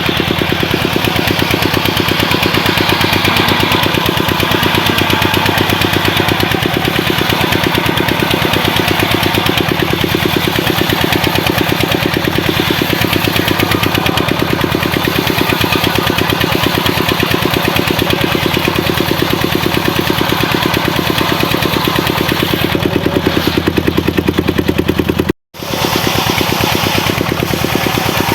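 Engine of a home-built circular saw rig running steadily with a fast, even pulsing. The sound cuts out for a moment about 25 seconds in, then resumes.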